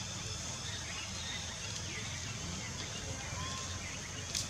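Forest ambience: a steady high-pitched insect drone over a low hum, with faint scattered chirps and a short click near the end.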